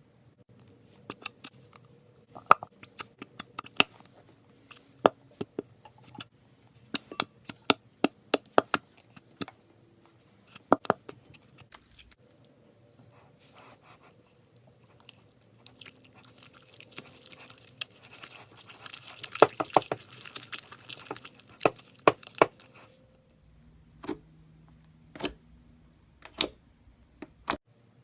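Slime being squeezed and poked by hand, giving sharp wet clicks and pops in quick clusters, with a longer crackly squishing stretch about two-thirds of the way through.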